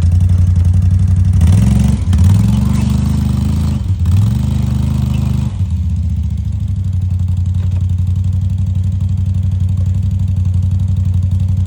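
Can-Am Outlander ATV engine running loud and close, its pitch rising and falling twice a couple of seconds in, then settling into a steady run.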